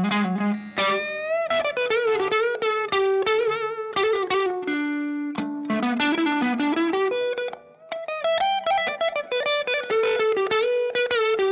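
Fender Stratocaster electric guitar played through a Strymon Iridium amp simulator: a single-note lead line with string bends and vibrato. One note is held for about a second near the middle, and there is a short break before the phrase resumes.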